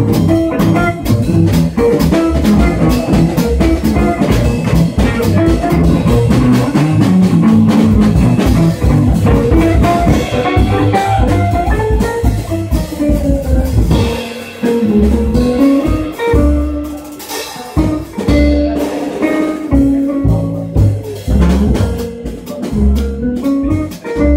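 Live swing manouche (gypsy jazz) trio playing: acoustic guitar, plucked double bass and drum kit. About halfway through, the full band thins out into a sparser passage of guitar lines over spaced bass and drum hits.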